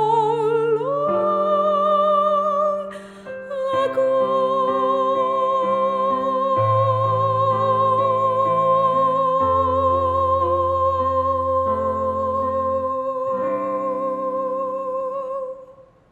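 Female solo voice singing the last line of a hymn with piano accompaniment. After a short breath she holds the final note with vibrato for about eleven seconds while the piano chords change beneath it, then the music fades out at the very end.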